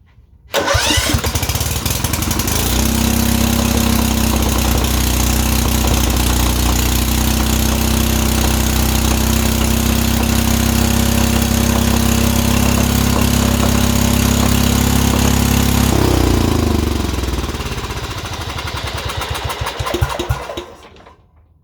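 Kohler Command 13 single-cylinder riding-mower engine started on choke, catching about half a second in and running at a steady high speed. Around 16 seconds in the sound drops lower and weaker, and the engine stops shortly before the end. The owner says the throttle was all the way down while it ran, a sign that the freshly adjusted governor arm is set wrong.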